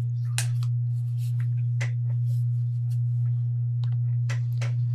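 A steady, loud low hum, a single pure tone carried on the studio audio feed. Faint clicks and rustles from headsets being handled sit over it.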